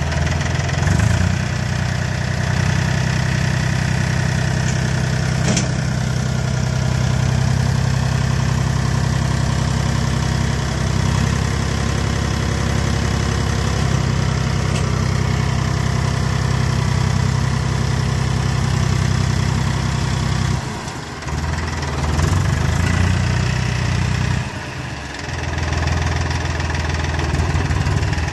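Mahindra 3525 tractor's three-cylinder diesel engine idling steadily, its low note dropping out briefly twice near the end.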